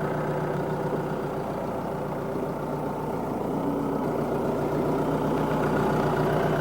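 Renault Espace IV engine idling steadily.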